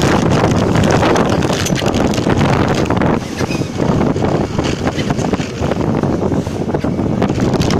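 Wind buffeting the phone's microphone on the deck of a moving passenger boat, over the steady noise of the boat's engine and wash.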